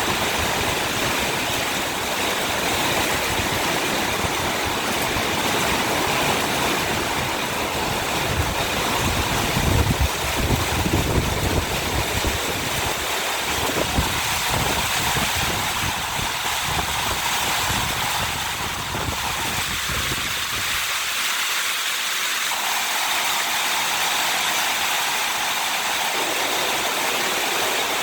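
Storm of heavy rain and wind: a steady rushing hiss, with wind gusts rumbling on the microphone about ten seconds in, easing after about twenty seconds.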